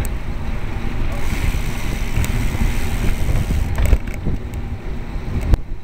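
Wind buffeting the microphone of a camera on a moving road bicycle: a steady low rumble, with a few short knocks.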